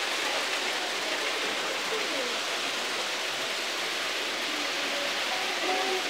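Several OO gauge model trains running on a layout: a steady rushing of wheels on the track and small electric motors.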